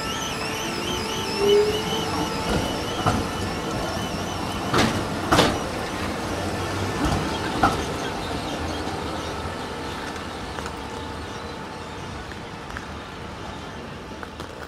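VBZ Tram 2000 tram running on rails: a steady rumble with several sharp knocks from the wheels, and a wavering high squeal at the start that dies away. The noise then slowly eases off.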